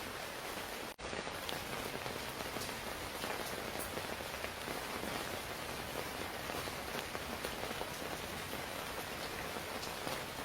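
Steady rain falling, with scattered sharp drop hits. The sound drops out for a split second about a second in.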